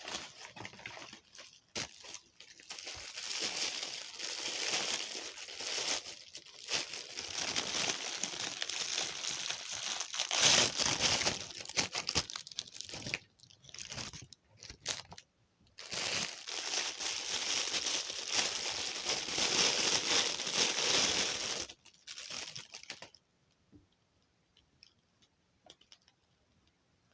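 Paper packaging being torn and crumpled as an action figure is unwrapped, in two long spells of rustling broken by short pauses; it stops about four seconds before the end.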